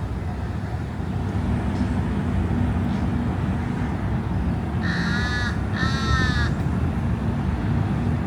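A crow cawing twice, two harsh calls of under a second each about five seconds in, over a steady low hum of city traffic.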